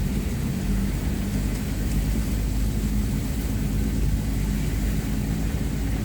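A motor vehicle's engine running steadily with a low rumble and a steady hum.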